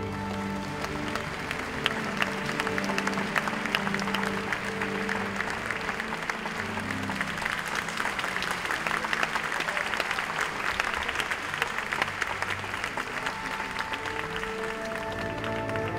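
Audience applauding over soft background music. The clapping starts about half a second in, is fullest in the middle and dies away near the end, leaving the music.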